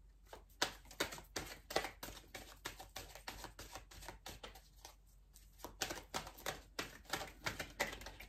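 A deck of oracle cards being shuffled by hand: a run of light, irregular card clicks and slaps, several a second, coming thicker near the end.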